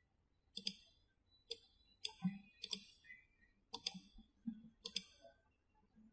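Computer mouse clicking: a string of short, sharp clicks, some in quick pairs, coming irregularly about once a second, as a wire is placed point by point in circuit-design software.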